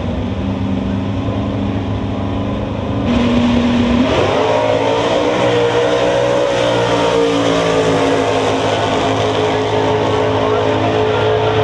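Two naturally aspirated muscle-class drag racers, a pickup truck and a red car, holding their engines steady at the starting line. About four seconds in they launch at full throttle and run down the strip, the engine note rising as they accelerate.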